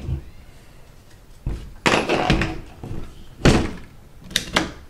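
Freedom Ordnance FX9 pistol being handled during takedown: hard knocks and clicks of the receivers and takedown pins as the pins are pushed out. There is a dull knock about a second and a half in, a cluster of knocks around two seconds, a sharp click at about three and a half seconds, and two quick clicks near the end.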